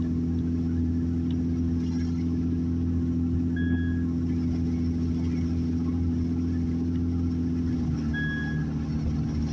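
Car engine and road noise heard from inside the cabin: a steady low drone that drops slightly in pitch about eight seconds in. A short high beep sounds twice, about four and a half seconds apart.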